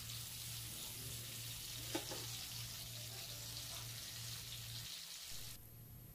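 Stuffed squid shallow-frying in oil in a nonstick pan on a low flame: a steady sizzle, with a light spatula tap about two seconds in. The sizzle cuts off suddenly near the end.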